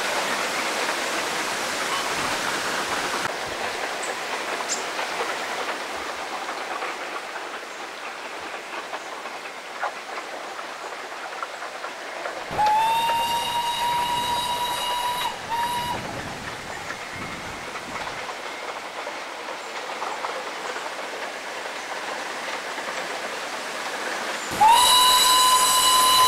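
Darjeeling Himalayan Railway steam locomotive's whistle. One long single-note blast sounds about halfway through, with a short extra toot just after it. Another, louder long blast begins near the end, over a steady hiss.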